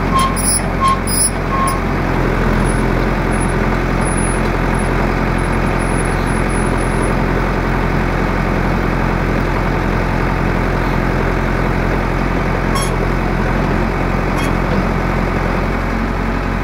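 Tractor engine running steadily, powering the hydraulic auger of a tractor-mounted piling machine, with a few sharp clicks in the first couple of seconds and two more near the end.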